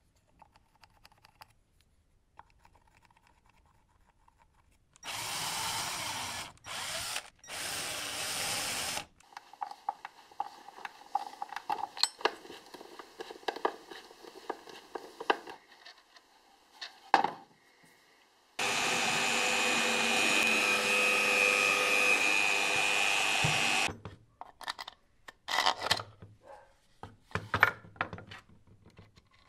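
Workshop power drill running in short bursts, then irregular scraping strokes on metal. A steady five-second run of a power tool follows, then scattered clicks and knocks of small metal parts being handled.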